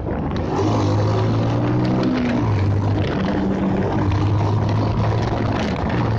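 Bajaj Pulsar motorcycle's single-cylinder engine running while riding, its note holding steady and then shifting in steps, with wind and road noise rushing past.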